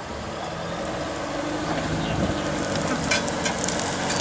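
Suzuki Samurai 4x4 engine running low as the truck creeps downhill, with the tyres and body pushing through tall grass and brush; from about halfway in, crackling and snapping of stems gets louder.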